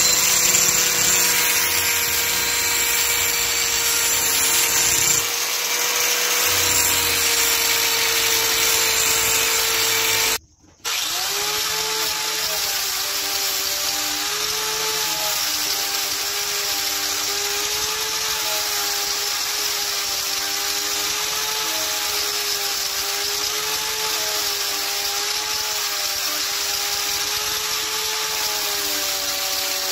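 Angle grinder running with its disc grinding the steel blade of a dagger made from an old file: a steady motor whine over the hiss of grinding, its pitch wavering slightly as the disc is worked along the metal. The sound drops out for a moment about ten seconds in, then the grinder is heard again.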